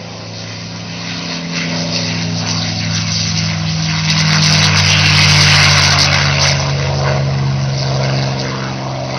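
Liquid-cooled V-12 piston engine of a World War II fighter at takeoff power, running down the runway. It grows louder as the plane passes, peaks about five seconds in, then fades with a slight drop in pitch.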